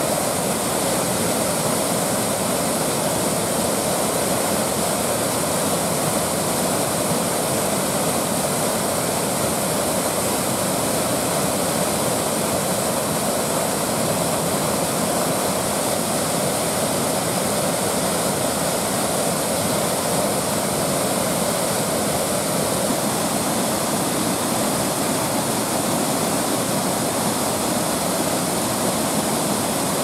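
Small waterfall spilling over a low rock ledge into a foaming pool, heard up close as a steady, unbroken rush of falling and splashing water.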